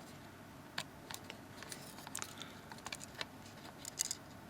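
Faint, irregular small clicks and taps of a replacement phone screen and its ribbon cables being handled and lined up against the opened handset.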